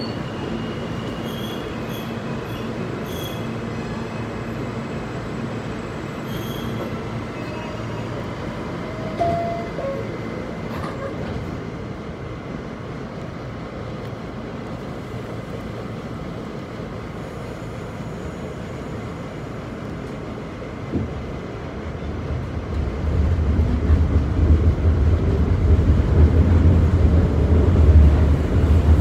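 Subway car running on the New York City B line, heard from inside: a steady rumble and rattle. Near the end the rumble grows much louder and deeper.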